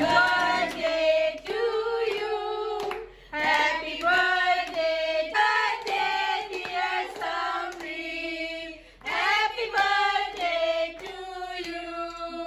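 Voices singing a song together in sung phrases, with hand claps.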